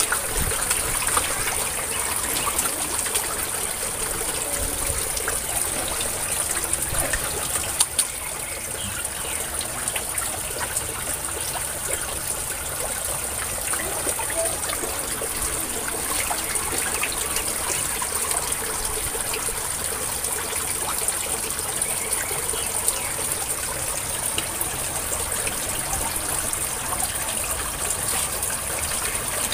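Steady splashing and churning of water as a dense crowd of hungry red tilapia feed at the surface of a tarpaulin pond, with many small slaps and plops throughout.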